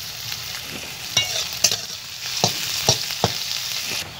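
Sliced onions sizzling in hot oil in a metal kadai, with about five sharp clinks of metal utensils knocking against the pan as they are stirred, between one and three and a half seconds in.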